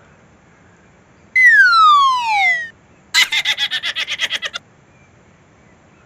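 Edited-in cartoon-style sound effects: a whistle sliding steadily downward in pitch for over a second, then a quick rattling run of pulses, about nine a second, for a second and a half.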